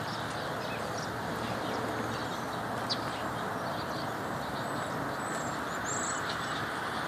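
Steady hiss of rain, with a few brief, high chirps from finches at a hanging sock feeder.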